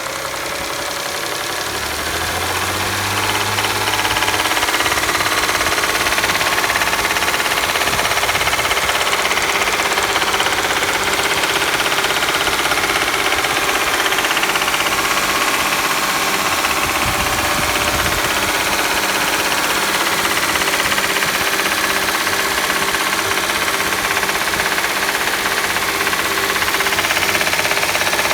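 2011 Audi S4's 3.0 TFSI supercharged V6 running with a steady, rhythmic knock and rattle, louder after the first few seconds. The uploader puts the knock down to the engine having been hydrolocked by the high-pressure fuel pump through a faulty fuel pump control module.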